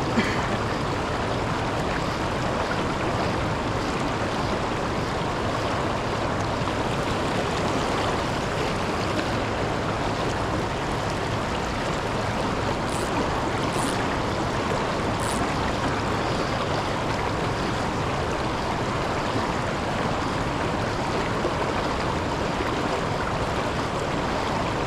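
Steady rush of river water pouring over a low waterfall, an even, unbroken roar of moving water.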